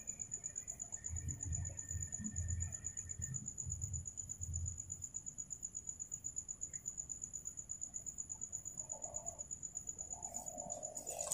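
Crickets chirping in a steady, fast-pulsing high trill, with a fainter second trill for the first few seconds. A few soft low thumps fall in the first five seconds.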